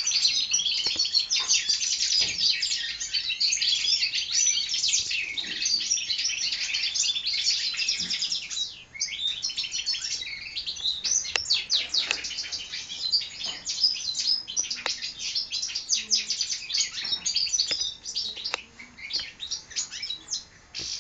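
Young European goldfinch hybrids (goldfinch mules) singing: a dense, continuous twittering song with a brief pause about nine seconds in, thinning out near the end.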